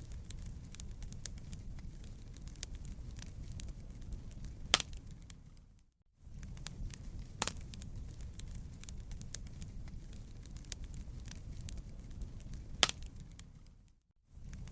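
Wood fire crackling over a steady low rumble, with many small snaps and a sharper pop about 5 s in and again about 13 s in. The sound fades out briefly and back in twice, about 6 s and 14 s in, as a short fire recording repeats.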